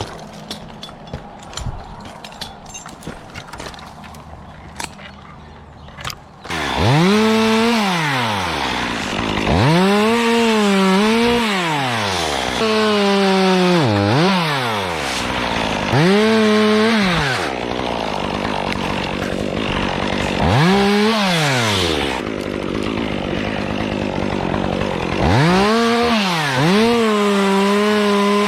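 Chainsaw revved hard and let down again repeatedly, about seven rises and falls in pitch, after it comes in about six seconds in. Before that, only scattered light clicks and knocks.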